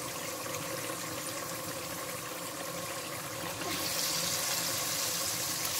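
Onion masala in oil and water bubbling in a clay cooking pot on a gas stove, as a steady watery sizzle. The sizzle grows louder and brighter near the end as raw chicken pieces go into the pot.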